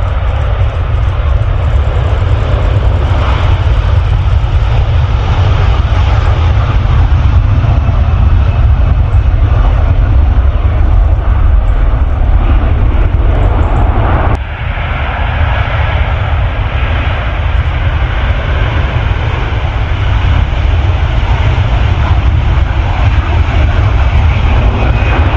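Airbus A330 twin turbofan engines running loud and steady, a dense noise with a heavy low rumble. The level drops suddenly for a moment about fourteen seconds in, then builds back.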